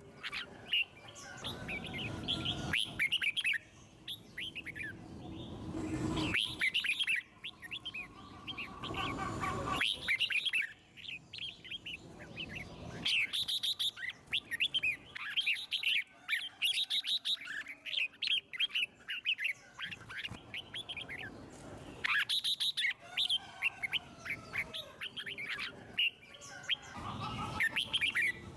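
Red-whiskered bulbul singing: bursts of quick chirping, warbling phrases with short pauses between them.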